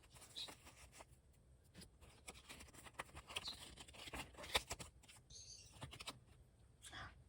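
Quiet handling sounds: scattered taps and clicks with soft rustling and scratching, the sharpest tap about four and a half seconds in.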